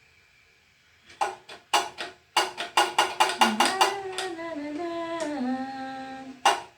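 Music begins about a second in after near silence: a run of sharp drum hits, then a singing voice stepping down in pitch over a steady beat.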